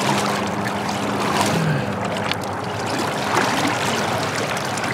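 Lake water sloshing and splashing into a bucket of live gizzard shad as it is dipped over the side of an aluminium jon boat, a steady watery noise.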